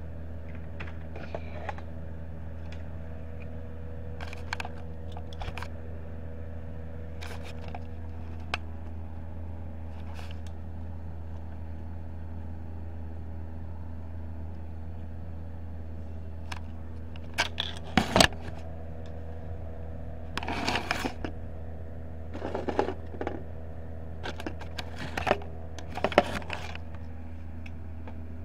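Handling noise: scattered clicks, then clusters of louder knocks, clicks and scrapes in the second half as the camera is picked up, moved and set down and things are shifted on a desk, over a steady low hum.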